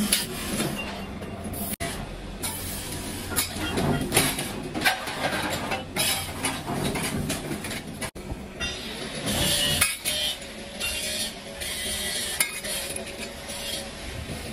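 Sheet-steel trowel blades clinking and clattering against one another as they are handled and dropped onto a pile, in irregular short knocks.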